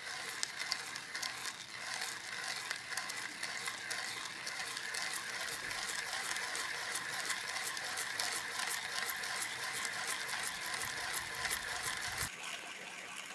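Kinu M47 Classic hand grinder being cranked, its steel burrs crunching light-roast coffee beans at a fine espresso setting, a steady run of dense crackling clicks. The sound turns lighter about a second before the end.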